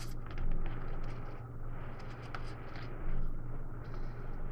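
Paper and cardstock being lifted and slid underneath the layers of a scrapbook page: light rustling and scraping of paper with small scattered ticks, over a steady low hum.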